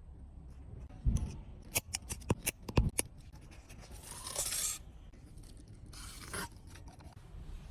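Hand tools working a tire puncture repair: a quick run of sharp clicks and knocks, then two short scraping, cutting sounds.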